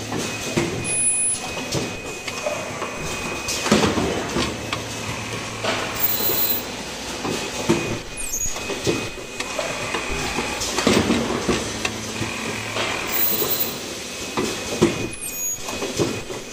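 Automatic cup-mask production machine running: pneumatic cylinders and the chain conveyor clack in a repeating cycle about every two to three seconds, with short hisses of air between strokes and a faint steady whine.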